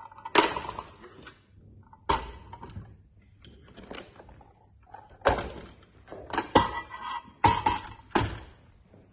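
Battery cover of a smart fingerprint door lock being handled: about half a dozen sharp plastic clicks and knocks, irregularly spaced.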